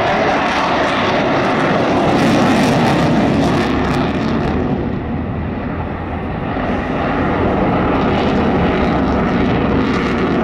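Engine noise of a fixed-wing display aircraft flying a manoeuvre, a loud steady rush that eases briefly about halfway through and then returns.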